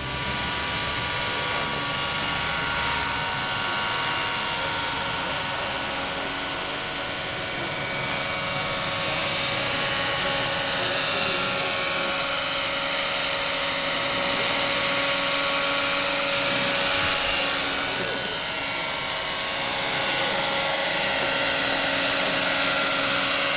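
Radio-controlled scale model SA-319B Alouette III helicopter in flight: a steady whine from its drive, mixed with rotor noise. Around the middle, the pitch bends up and back down as it passes.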